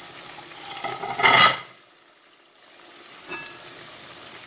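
Flattened breadfruit slices sizzling in hot oil in a cast-iron pot during their second fry, a steady frying hiss. About a second in there is a brief, louder clatter.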